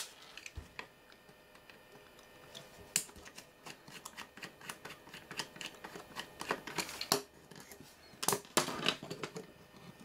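Screwdriver and hands working the front cover off a small metal radio control panel: scattered sharp metallic clicks and taps of screws and panel being handled, with a cluster of louder clicks about eight seconds in.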